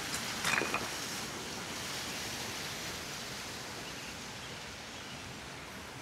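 Fast mountain stream rushing over boulders, a steady hiss of white water. A couple of brief sharp sounds stand out about half a second in.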